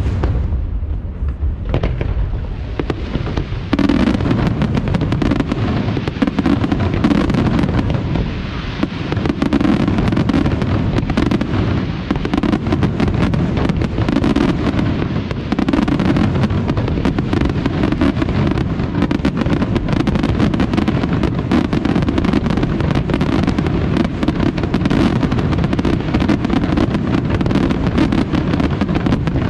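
Fireworks display: aerial shells bursting overhead. A few separate bangs, then from about four seconds in a dense, continuous barrage of rapid-fire bangs.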